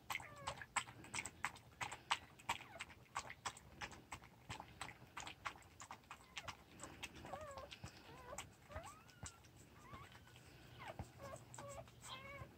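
Mother poodle lapping milk from a bowl: quick wet tongue clicks, about three a second, with thin high squeaks and whimpers from a newborn puppy, more of them in the second half.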